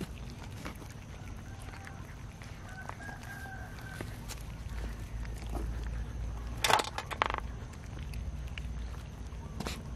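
A group of cats eating cooked rice from a shared metal tray, with many small chewing and teeth-on-tray clicks. A faint pitched call sounds in the background about three seconds in. Two loud, sharp sounds come close together about seven seconds in.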